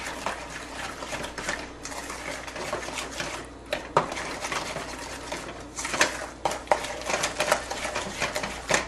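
A utensil beating eggs into cookie dough by hand in a stainless steel bowl: rapid, steady clicking and scraping against the metal, with a few louder knocks on the bowl.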